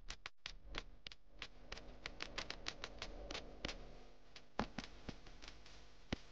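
Faint, irregular clicking and crackling, several clicks a second, over a low steady hum; two sharper clicks stand out, one about two-thirds of the way through and one near the end.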